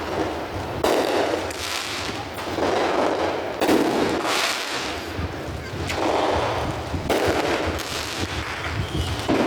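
Aerial fireworks bursting: a series of booms a second or two apart, each trailing off in a rumbling echo.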